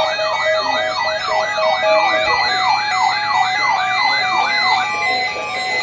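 Siren sweeping rapidly up and down, about three cycles a second, over steady electronic tones; the sweeps stop a little before five seconds in while the steady tones continue.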